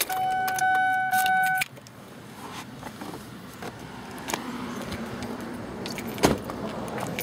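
A steady electronic beep lasting about a second and a half, then a 2004 Ford Taurus running steadily with keys jingling and a sharp click near the end.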